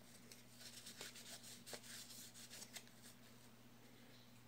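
Near silence: faint rubbing and light scattered ticks from hands cleaning a baitcasting reel's side cover, over a steady low electrical hum.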